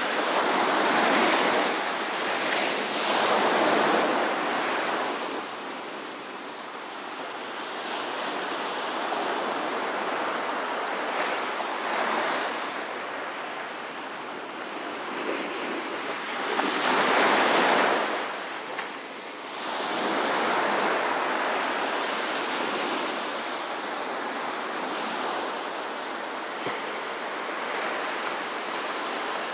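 Small ocean waves breaking and washing up a sandy beach: a steady hiss of surf that swells with each wave, loudest in the first few seconds and again a little past the middle.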